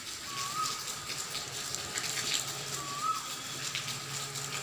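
Light rain falling with a steady hiss and scattered drips and ticks on wet ground and a puddle. Two short rising chirps are heard, about a second in and again about three seconds in.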